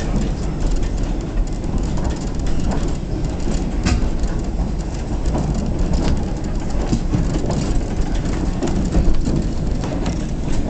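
White Pass & Yukon Route narrow-gauge train rolling along the track, heard from an open flatcar: a steady rumble of wheels on rail with scattered sharp clicks and clanks.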